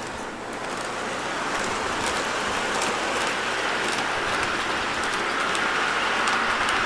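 Electric model train running on its metal track: a steady rolling whir of wheels and motor that grows slightly louder, with faint light clicks.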